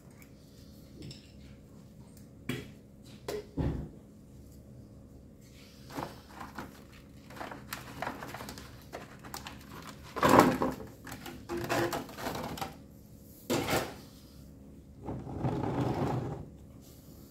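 Gloved hands handling plastic oil bottles and parts: a string of scattered knocks and clicks, the loudest about ten seconds in, then a longer rustle near the end.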